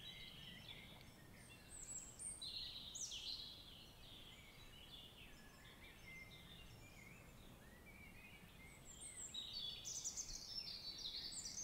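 Faint birdsong: several birds chirping and trilling in short falling phrases. It is busiest a couple of seconds in and again near the end.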